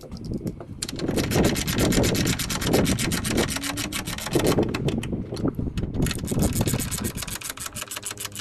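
Socket ratchet clicking rapidly as it runs the nuts down on the battery hold-down bracket's J-bolts. The clicking starts about a second in, pauses briefly near six seconds, then resumes.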